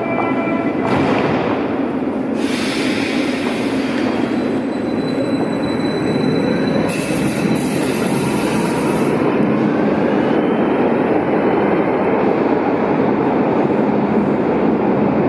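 Berlin U-Bahn train running in an underground station: a steady, dense rumble of wheels and running gear. There are two bursts of high hiss, about two and seven seconds in, and a faint high-pitched wheel squeal in the middle.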